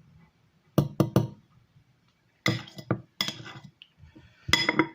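Metal fork clinking and knocking against a plate in a few short clusters of taps. The last cluster, near the end, rings briefly.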